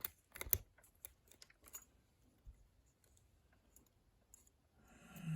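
Small sharp metallic clicks of a Lishi Master Lock M1 pick being inserted and seated in a Master Lock No. 1 padlock's keyway: a quick cluster in the first couple of seconds, then only faint handling noise.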